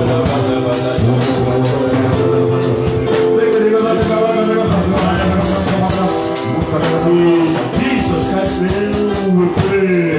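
Worship music: singing over instruments with a steady percussive beat and long held notes.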